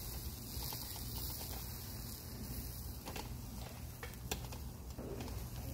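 Metal shashlik skewers clicking a few times against the grill frame as they are turned over the charcoal, over a steady low rumble.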